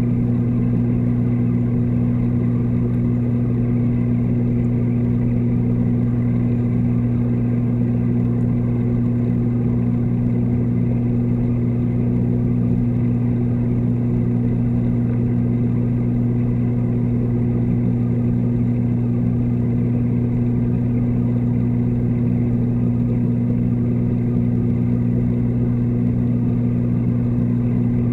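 Steady low electric hum of reef-aquarium pumps, heard through the water by an underwater camera: an even drone with a deep tone and its overtone that never changes.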